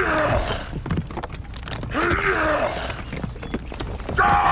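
A deep, strained groaning voice of heavy effort, in drawn-out groans about two seconds apart, with another beginning near the end, over a low rumble.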